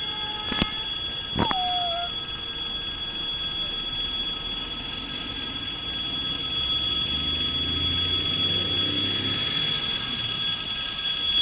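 Distant rumble of an ЭП2Д electric multiple unit approaching, swelling from about six or seven seconds in, under a steady high-pitched whine that runs throughout. Two short chirps come near the start.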